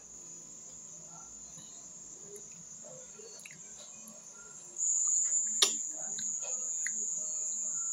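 Crickets trilling steadily in a high, unbroken tone, much louder from about five seconds in. Faint clicks and mouth sounds of eating by hand come through underneath, with one sharp click about five and a half seconds in.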